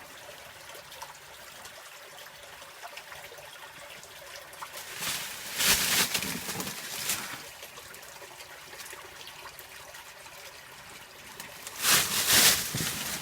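Spring water trickling out of a small cave in a steady soft flow. Two louder rushing noises break over it, about five seconds in and again near the end.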